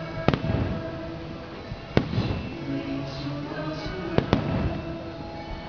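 Fireworks exploding in the sky: four sharp bangs, the last two close together, over music playing steadily underneath.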